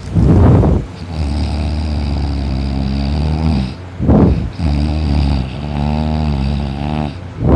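A sleeping man snoring really loud: a harsh snort opens each breath, followed by a long, steady, buzzing drone of about three seconds. This happens twice, and a third snort starts at the very end.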